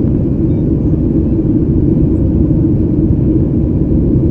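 Steady in-flight cabin noise of a Boeing 737-8 MAX, heard inside the cabin at a window seat over the wing: an even, loud, low rumble of the CFM LEAP-1B jet engines and the airflow past the fuselage.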